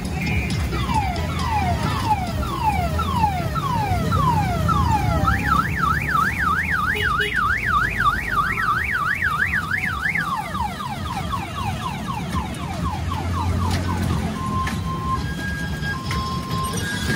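Electronic multi-tone car-alarm siren cycling through its patterns: falling sweeps about twice a second, then a fast up-and-down warble, then quicker falling sweeps, and an on-off beeping tone near the end. A steady low rumble runs underneath.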